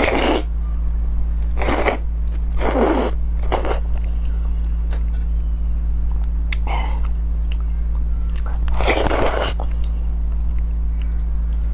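Close-up eating sounds: about six loud, wet slurps and sucks as soft braised meat is bitten and sucked off, with quieter chewing in between, over a steady low hum.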